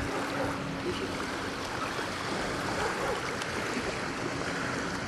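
Steady open-air noise of lake water and wind in the shallows. A faint steady hum dies away about a second and a half in.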